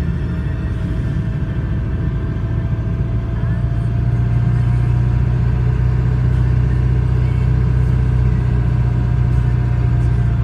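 V10 vehicle engine running steadily while driving, a loud low drone with a faint whine that edges slightly up in pitch partway through.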